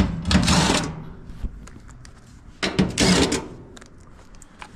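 Sheet-metal dryer parts being handled: two short bursts of scraping, one about half a second in and one about three seconds in, with scattered clicks and knocks between them.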